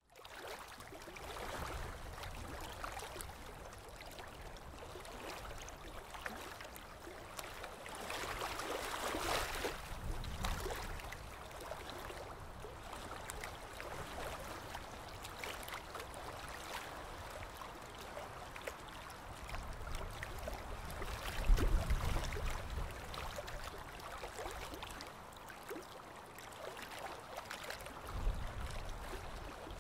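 Water washing and splashing in a steady wash, swelling for a couple of seconds in the first third, with a short low rumble about two-thirds through as the loudest moment and another near the end.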